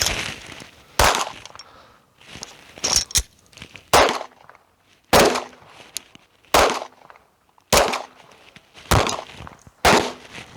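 About ten gunshots at a shooting range, fired at an uneven pace of roughly one a second, each a sharp crack with a short echo.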